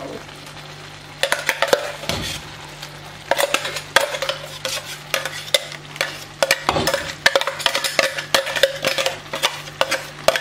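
A steel spoon stirring spinach puree into a simmering masala gravy in a metal kadai. Starting about a second in, it makes repeated quick clinks and scrapes against the pan.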